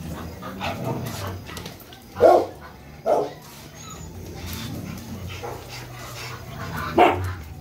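Dogs barking: three loud single barks, about two seconds in, a second after that, and near the end, over a low steady hum.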